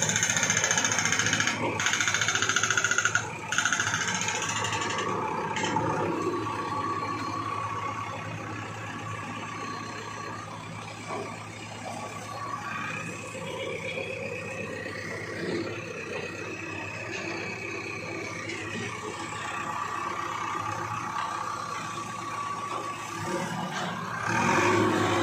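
Diesel engine of a mini JCB backhoe running steadily, with street noise around it.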